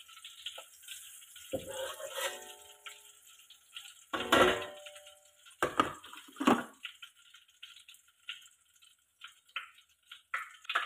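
Long metal spoon scraping and clanking against a wok while serving stir-fried vegetables onto a plate, several strikes ringing briefly, the loudest about four seconds in. A plate is then set down on the stone countertop with a couple of knocks, followed by small ticks.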